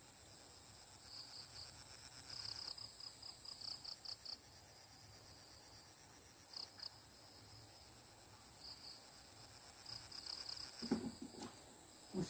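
Insects chirring in a steady high pulsing trill, with a second, lower chirping that comes and goes. Two short low sounds come near the end.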